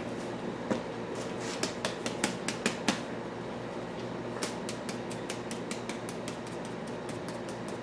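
A run of quick, light, sharp taps over a steady low hum. The taps come irregularly at first, then settle into a quicker, fairly even run after about four seconds.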